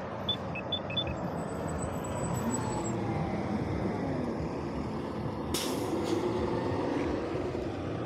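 City bus passing close by with its engine running, and a short hiss of air brakes about five and a half seconds in.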